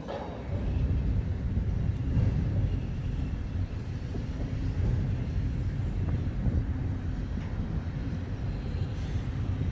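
Low, steady rumble of railway carriages being shunted aboard a train ferry, with a few faint clicks.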